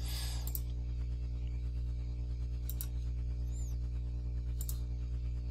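Steady low electrical hum in the recording, with a few faint computer-mouse clicks.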